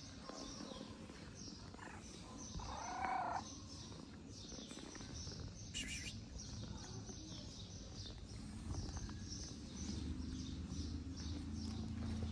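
A cat meows once, a short rising-and-falling call about three seconds in, over steady high bird chirping. A low steady hum comes in during the second half.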